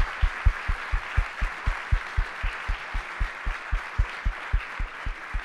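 Audience applauding in a large room, with a steady run of short low thumps about four a second under the clapping; both fade toward the end.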